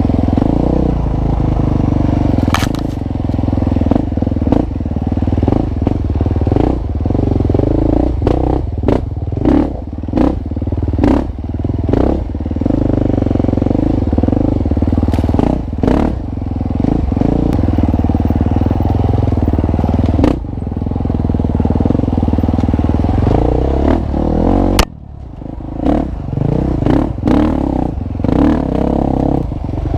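A KTM dirt bike engine running with constantly changing throttle, with frequent sharp knocks and rattles as the bike bounces over rough trail. Near the end the engine sound drops away suddenly for a moment, then picks up again.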